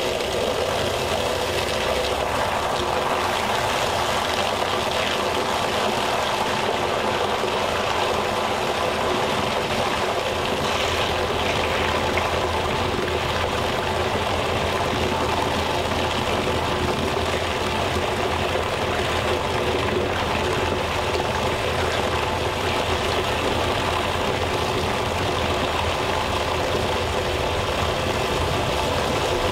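Steady rushing of water draining through two roof drain outlets and down their pipes on a drainage test rig, with a steady machine hum underneath. The larger DN 100 gravity outlet draws air in with the water, while the DN 50 siphonic outlet runs full with water only.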